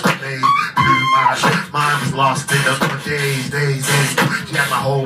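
Live beatboxing into a microphone: a mouth-made drum beat of kicks and snares about twice a second over a low bass line, with a vocal note that rises and then holds about a second in.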